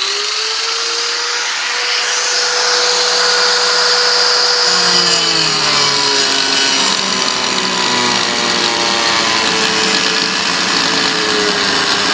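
Angle grinder running, its motor whine finishing its climb to full speed at the start and holding steady. From about five seconds in the pitch drops and wavers as the disc cuts a notch into wooden skirting board.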